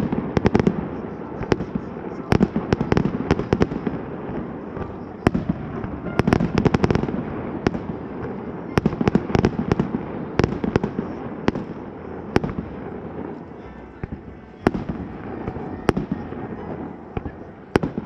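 Fireworks display bursting overhead: many sharp bangs and crackling reports at irregular intervals, coming in quick volleys of several shots, over a steady wash of echo.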